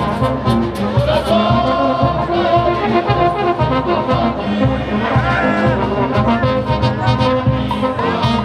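Peruvian brass band (banda de músicos) playing live: trumpets and trombones carrying the melody over congas, cymbals and drum keeping a steady beat.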